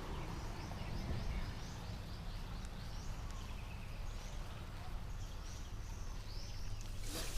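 Outdoor ambience of birds chirping, short high calls repeating about twice a second, over a steady low rumble. Loud clicking handling noise starts right at the end.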